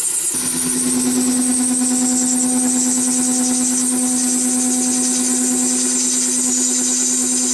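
Wood lathe spinning an epoxy resin blank while a negative rake scraper cuts it, peeling off long ribbons of resin: a steady hum under a strong high hiss from the cut, setting in about half a second in.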